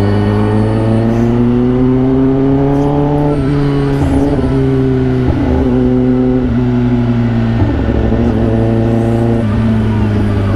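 Kawasaki ZX-10R's inline-four engine through an SC-Project aftermarket exhaust, heard from the rider's seat: it pulls up through the revs for about three seconds, eases off, holds a steady cruise, and drops again near the end.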